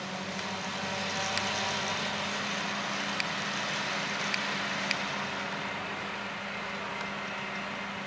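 Krone BiG X 530 self-propelled forage harvester chopping standing maize, with a tractor running alongside: a steady engine hum under the rushing noise of the chopping. It grows louder for a few seconds as the machines pass, then eases, and four sharp clicks sound through the middle.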